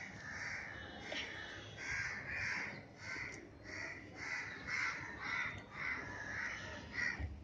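Birds calling: a run of short repeated calls, about two a second.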